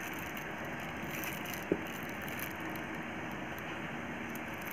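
Faint crinkling of plastic packaging as sunglasses are handled, over a steady background hiss, with one small click just under two seconds in.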